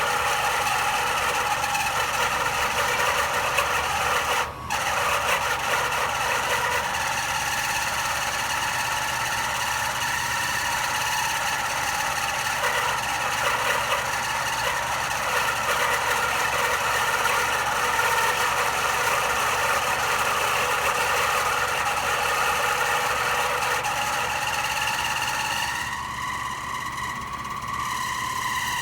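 Air conditioning unit running with a steady mechanical noise: many high, steady tones over a hiss. It drops out for an instant about four and a half seconds in, and its tones shift near the end.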